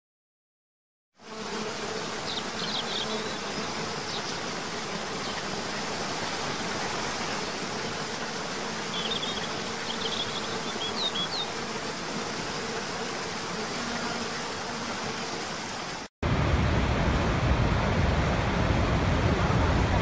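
Steady rush of a waterfall cascading over rocks, with a faint steady insect buzz and a few short high chirps; it starts about a second in. About sixteen seconds in it cuts to the louder, deeper roar of Niagara's Horseshoe Falls.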